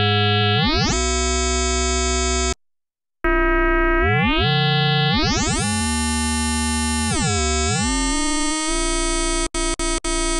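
Behringer 2600 Blue Marvin analog synthesizers playing a held note, with VCO2 modulating the filter. As the modulation amount is turned up, the tone brightens and its overtones bend and sweep. The first note stops suddenly about two and a half seconds in, a second starts half a second later and brightens the same way, and near the end the sound cuts out in a few short gaps.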